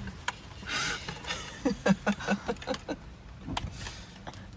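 A man laughing in short, quick pulses about two seconds in, after a breathy hiss. A few light clicks follow near the end.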